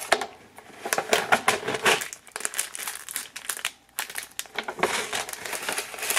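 Thin plastic packets from a Maruchan instant yakisoba crinkling in irregular bursts as they are handled, torn and shaken out into the plastic noodle tray, with a short pause partway through.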